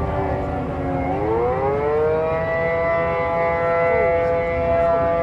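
Outdoor tornado warning siren sounding a sustained tone; its pitch dips about a second in, rises back within a second, then holds steady. A low rumble runs underneath.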